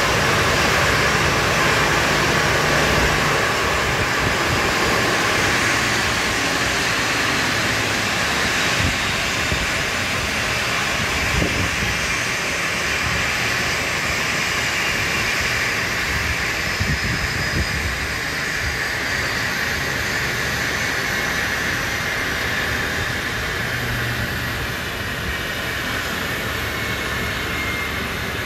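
Boeing 737's twin jet engines running down after shutdown: a steady jet rush that slowly fades, with a thin turbine whine gliding down in pitch.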